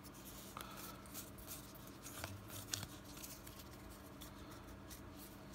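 Faint rustling and small clicks of a stack of Pokémon trading cards being handled, with cards slid one behind another through a freshly opened booster pack.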